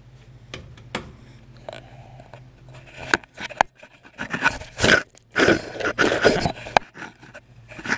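DeWalt 20V Max cordless impact wrench hammering in short bursts on the centre bolt of a zero-turn mower's PTO clutch, working the clutch off the engine shaft, after a few clicks and scrapes of the tool being set on the bolt.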